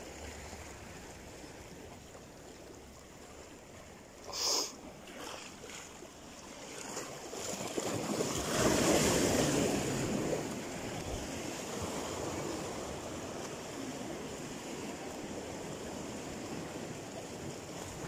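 Sea waves washing against a rocky shore, with wind on the microphone. A wave surges in loudest about eight seconds in, and a brief sharp sound comes about four seconds in.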